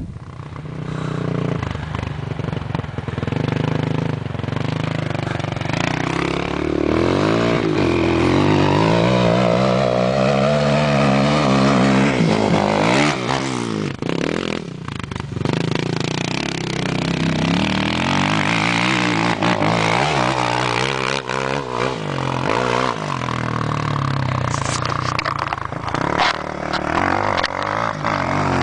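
Suzuki LTR 450 quad's single-cylinder four-stroke engine running under load, its pitch repeatedly rising and falling as the throttle is opened and closed.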